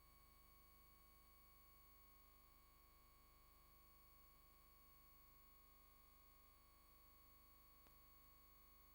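Near silence: a faint, steady electrical hum with thin unchanging high tones, the background of a VHS tape playback before any programme sound.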